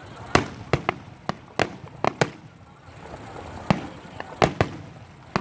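Fireworks bursting: a rapid, irregular run of about a dozen sharp bangs, in quick clusters, with a short lull in the middle.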